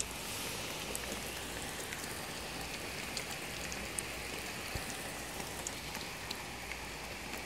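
Heavy thunderstorm downpour: rain pouring steadily, with scattered sharp ticks of individual drops striking nearby.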